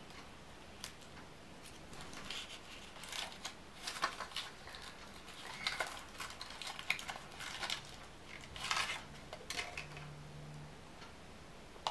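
Faint crinkling of foil and small clicks, coming in short scattered bursts, as a Kinder Surprise egg is peeled out of its foil wrapper and handled.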